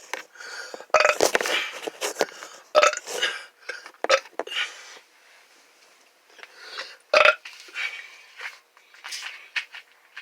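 A person burping over and over, in separate loud belches. The biggest come about one, three, four and seven seconds in, with smaller burps between them and near the end.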